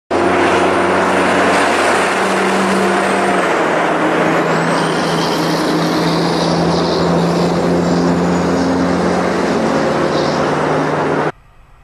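Convoy of heavy-haulage trucks hauling oversize loads driving past close by: diesel engines running under load with heavy tyre noise, the engine pitch changing as each truck goes by. The sound cuts off suddenly near the end.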